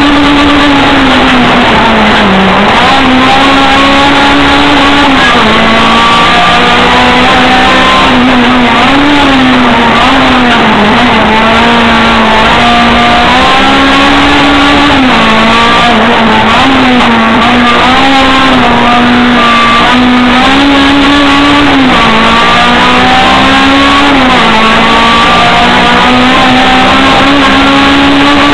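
Race car engine heard from inside the cabin, run hard at high revs with its pitch dropping briefly and climbing back every few seconds through the bends. Loud throughout.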